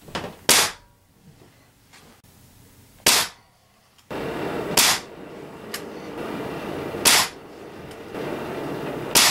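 Spring-piston Ruger Air Magnum air rifle firing five shots about two seconds apart, each a sharp crack. A steady background noise comes in about four seconds in.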